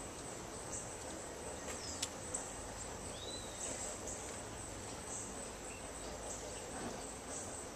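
Outdoor insects buzzing steadily in a high, repeatedly pulsing drone. A couple of faint sharp clicks come about two seconds in, and a single short rising chirp comes about three seconds in.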